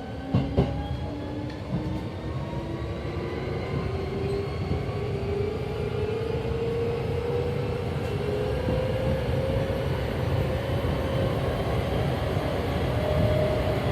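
Hankyu 7300 series traction motors (Toyo TDK-8580-A compound-wound, field chopper control) heard from inside the motor car as the train accelerates: a motor whine rising steadily in pitch over wheel and track rumble, with a couple of sharp clicks about half a second in. The motor tone has the soft, rubbing character the recordist calls unusual for this class.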